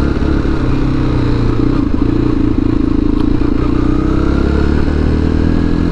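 Motorcycle engine running at a steady cruising speed while being ridden, with a steady low drone and only slight changes in pitch.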